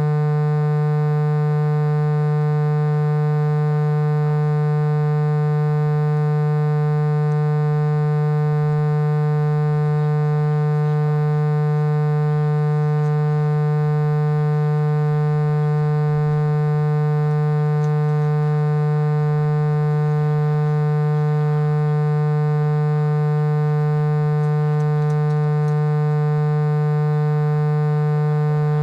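A steady electronic drone of several held tones, strongest at a low hum, that does not change at all.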